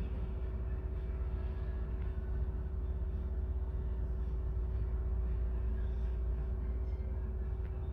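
Low, steady rumble of the gas-fuelled ferry's engines and propulsion, heard inside the wheelhouse, with a constant mid-pitched hum over it; it swells slightly midway.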